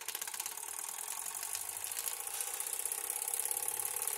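Wilesco D455 live steam model engine starting and running, its exhaust chuffing in a rapid, even rhythm over a hiss of steam. It grows steadily louder.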